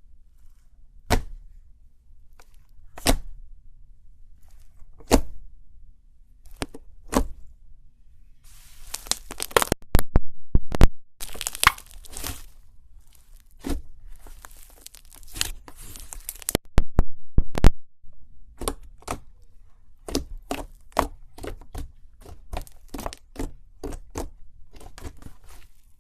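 Slime being squeezed and stretched, giving sharp pops and crackles from trapped air. Single pops come a second or two apart at first, then turn into longer bouts of dense crackling, and near the end into quick popping several times a second.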